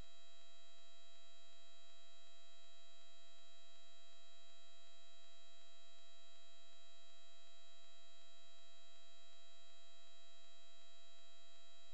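Steady electrical hum with a thin high whine that never changes, made of several constant tones over faint hiss.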